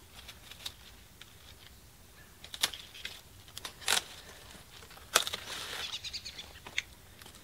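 Hand pruning shears snipping through a winter squash's stem on the vine: four sharp clicks about a second apart, with a brief rustle of vines and leaves after the third.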